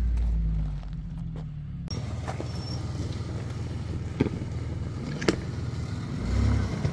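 Lifted Ford Explorer's engine running at low speed as it crawls over a rocky trail, with two sharp clicks of stones under the tyres; the engine swells briefly near the end.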